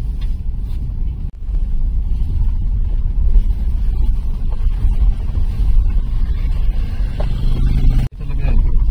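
Small car driving, with a steady low rumble of engine and road noise. The sound cuts out briefly twice, about a second in and near the end.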